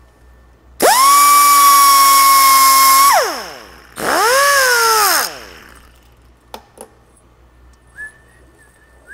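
Handheld cut-off tool with a small abrasive wheel run free, not cutting: a loud high whine that spins up about a second in, holds for about two seconds and winds down, then a second, shorter burst that spins up and down. A few light clicks follow near the end.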